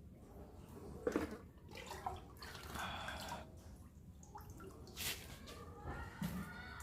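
Drained water from the catfish containers splashing and dripping in short, irregular bursts.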